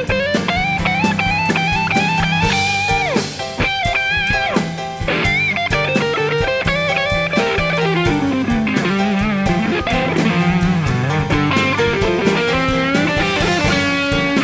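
Studio-recorded electric guitar solo: a lead line full of string bends and vibrato, with long held notes sliding up and down. It plays over a band backing with drums.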